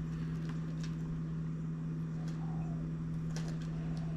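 A steady machine hum, like a fan or household appliance, with a few faint clicks and taps as a monofilament rig and its circle hooks are handled.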